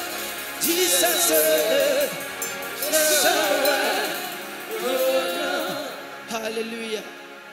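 Live gospel band music: a male voice singing over keyboard and drum kit with cymbal splashes, growing quieter toward the end.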